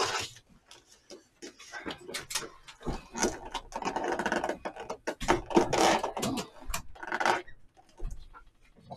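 Clear plastic takeout-bowl lid being handled and pressed onto the bowl: a run of crinkling rustles and sharp plastic clicks, busiest in the middle.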